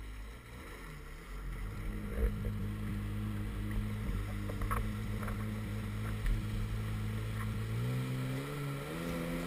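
Sea-Doo 3D Di jet ski's 951cc two-stroke engine running at a steady pitch as the craft travels over the water, then rising in pitch near the end as it speeds up.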